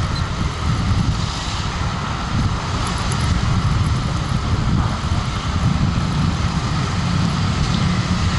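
Steady engine and road noise from a vehicle driving through city traffic: a dense low rumble that runs on without a break.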